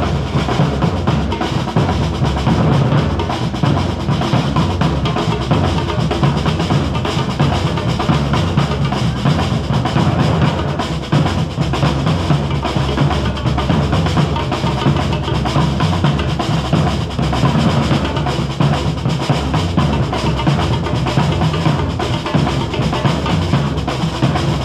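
A street drum band plays a continuous, loud beat on large strap-hung bass drums and snare drums struck with sticks.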